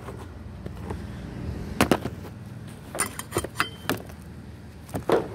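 Scattered metallic clinks and knocks from tools and parts being handled in a car's engine bay: two knocks about two seconds in, a quick run of ringing clinks around three seconds in, and another knock near the end.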